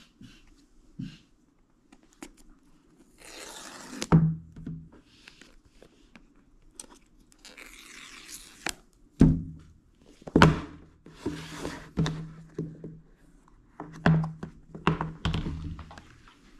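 Paper tear strips being ripped off a cardboard Apple Watch Ultra box, twice, about three and eight seconds in, followed by a series of knocks and thunks as the box is opened and its cardboard tray handled.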